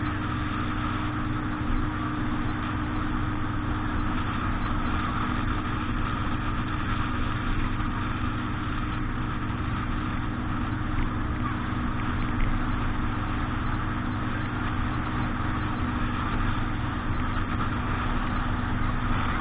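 An engine running steadily at an unchanging speed, with an even hiss of rushing air or water over it.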